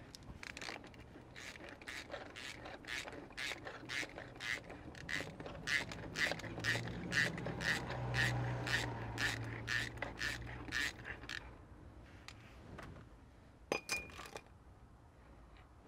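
Socket ratchet clicking in a steady run of two to three clicks a second as it spins a 54 mm spindle nut off a Toyota LandCruiser front hub, the clicking stopping about three-quarters of the way through. A couple of sharp metallic clicks follow near the end.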